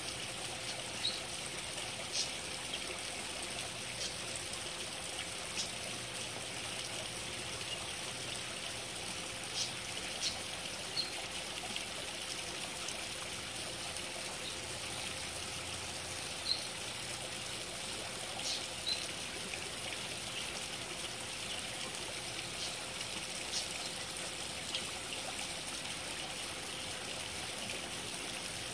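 Small garden pond waterfall splashing steadily over rocks, with a few brief sharper sounds standing out now and then.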